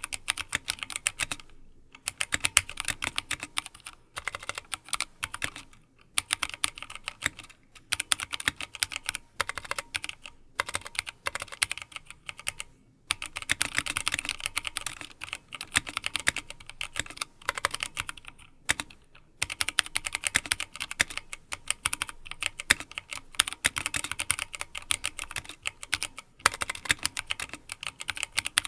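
Fast typing on a Drop ALT High-Profile mechanical keyboard with Kailh Speed Silver linear switches and doubleshot PBT keycaps in an aluminium case: quick runs of key clacks broken by brief pauses every few seconds.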